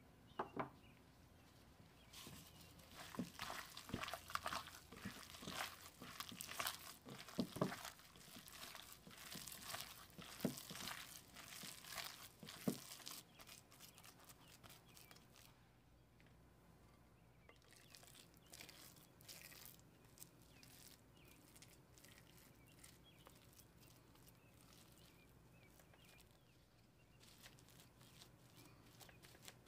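A hand in a plastic glove kneading minced lamb with spices, onion and yogurt in a glass bowl: irregular wet squishing and glove crinkling, busiest in the first half. Later come quieter, sparser handling sounds as the meat is patted into shape on plastic wrap.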